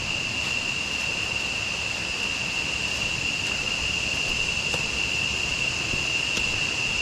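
Steady high-pitched drone of a jungle insect chorus, constant in pitch, over the continuous rush of flowing river water.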